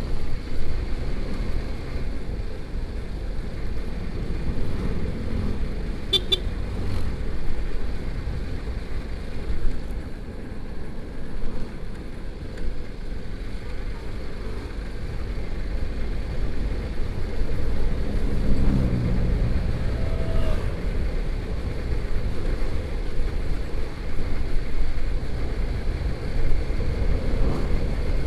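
Motorcycle on the move, with its engine running under a steady rush of wind on the microphone. A short, high beep comes about six seconds in, and around nineteen seconds in a pitched engine note drops.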